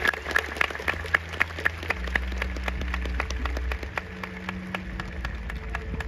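Stadium crowd applauding: a patter of many claps, with sharp single claps nearby standing out and the clapping easing off toward the end, over a low steady hum.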